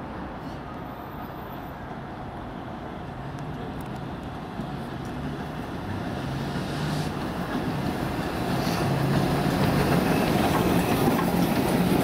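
LMS Black Five steam locomotive and its train of coaches approaching and passing, the rumble growing steadily louder through the first half and staying loud as the coaches go by.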